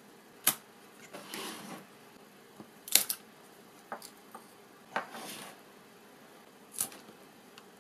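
Small 3D-printed PLA parts being pulled off a taped print bed and handled: a handful of sharp plastic clicks, the loudest about three seconds in, with two short scraping rubs between them.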